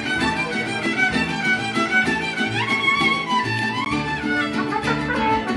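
Mariachi band playing live: violins carry the melody over rhythmically strummed guitars and the deep plucked bass notes of a guitarrón.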